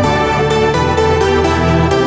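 Electronic background music with held synth notes and a steady beat.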